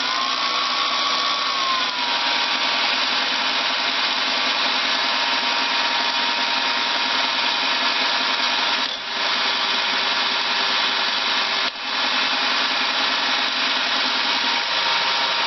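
Milling machine spindle turning a diamond turbo grinding cup wheel, its whine levelling off to a steady pitch about two seconds in as it reaches speed, over a steady hissing grind as the wheel skims a worn bench stone flat. The sound dips briefly twice, near the middle and a little later.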